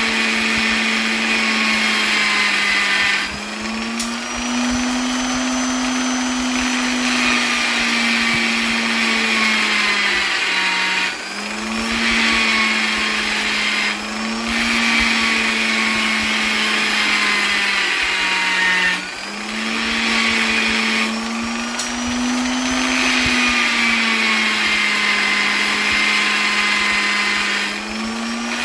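Electric polisher's motor running continuously. Its hum drifts slightly up and down in pitch, and the level dips briefly several times.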